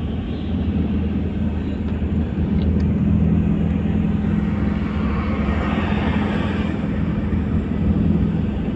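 Car engine and road noise heard from inside the cabin while driving: a steady low hum over a noise haze, with a louder hiss for a second or two about five seconds in.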